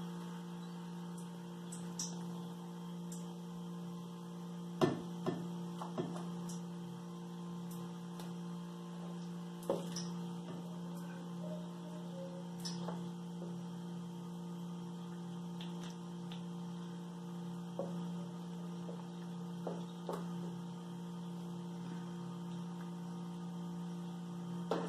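Steady electrical mains hum throughout, with a few light clicks and knocks from kitchen utensils and dishes, the most distinct about five and ten seconds in.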